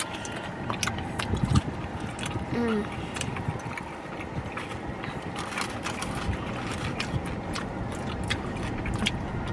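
Scattered clicks and taps of food and takeout packaging being handled during a meal, over a steady low background rumble, with one louder thump about one and a half seconds in.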